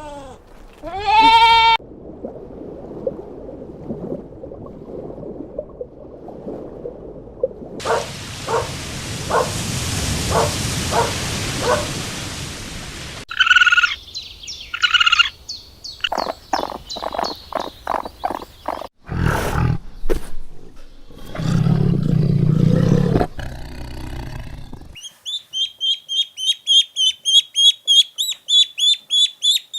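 A series of different animal calls one after another, with a bleating call near the start and a fast run of high repeated chirps near the end.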